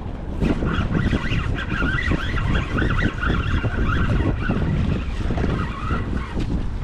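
Strong wind buffeting the microphone, with waves washing against the rocks. A wavering, higher-pitched sound runs over it from about half a second in until shortly before the end.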